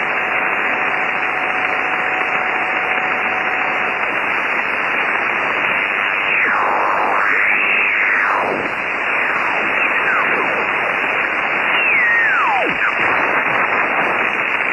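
Receiver hiss and static from a Kenwood TS-480 HF transceiver tuned to the 20-metre amateur band, with a faint steady whistle for the first few seconds. From about six seconds in the main tuning dial is turned, and the whistles of signals slide up and down in pitch as the receiver sweeps across the band.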